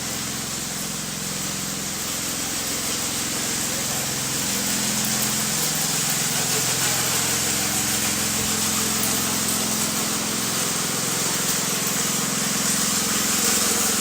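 A heavy engine running steadily during a cement pour, with a loud constant rushing hiss over it. The engine's pitch steps up slightly about four seconds in, then holds.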